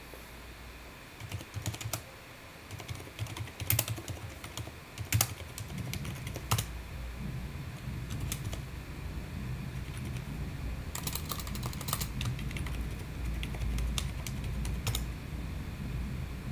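Computer keyboard typing: single keystrokes at irregular intervals, with a quick run of keystrokes about two-thirds of the way through.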